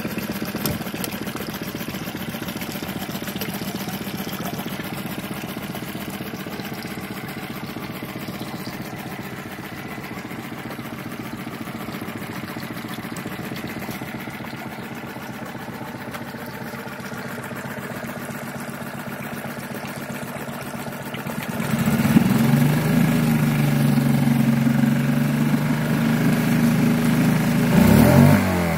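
Suzuki 6 hp four-stroke outboard running in a test barrel of water, its propeller churning the water. It idles steadily, is revved up about three quarters of the way through and held at the higher speed, then throttled back down near the end.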